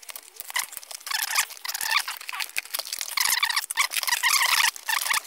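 Scratchy rustling and scraping of plastic and cardboard packaging, with many small clicks, as a plastic toy blaster is pulled free of the ties in its box tray and lifted out.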